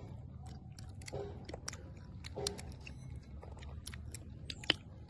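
Someone chewing crunchy food close to the microphone: a steady run of irregular crisp clicks and crunches, with faint voices twice in the background.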